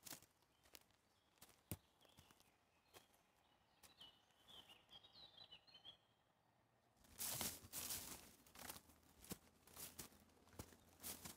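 Footsteps on a forest floor with scattered twig snaps, and a bird singing faintly around four to six seconds in. From about seven seconds in, louder rustling and crunching of walking through tall grass and undergrowth.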